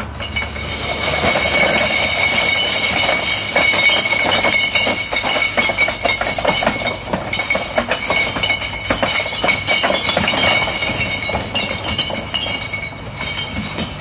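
Masses of glass wine bottles clattering and clinking as they slide and tumble from a truck's trailer onto a heap of bottles on the road, a dense run of clinks that keeps going. A steady high-pitched whine sounds underneath.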